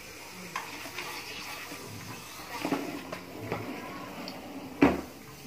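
Light clicks and knocks of metal as hands work on a stopped Dongfeng diesel engine, with one sharper knock near the end.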